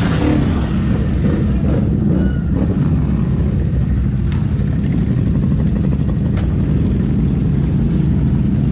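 ATV engine running steadily at high throttle, a continuous low drone, with a couple of faint clicks about halfway through.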